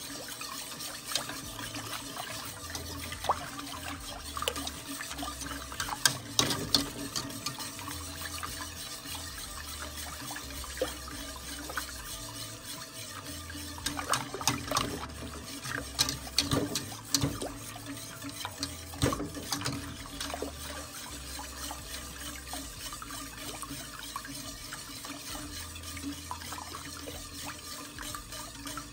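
Milk-and-egg-yolk punch mixture being stirred steadily in a pot on the stove, the liquid swishing with scattered scrapes and clicks of the utensil against the pot, a cluster of them in the middle. It is stirred constantly as it heats toward the boil so the yolks blend in without curdling.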